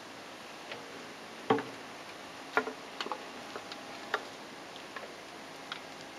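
Komatsu PC78MR-6 compact excavator digging, its engine a steady low noise under irregular sharp clicks and knocks of the bucket working earth and stones, the loudest about a second and a half in.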